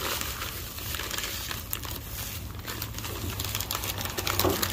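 Plastic bubble wrap crinkling and crackling as it is unrolled by hand, in a continuous run of small crackles with a louder crackle near the end.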